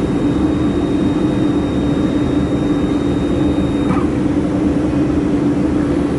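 Steady, loud hum of a running laser welding machine. A faint high whine stops about four seconds in, with a small tick.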